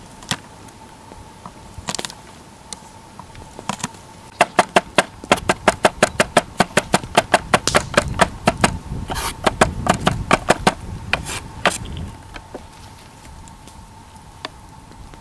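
Kitchen knife chopping garlic cloves on a wooden cutting board: a few single chops, then a fast, even run of chopping, about four or five strokes a second, that stops about three seconds before the end.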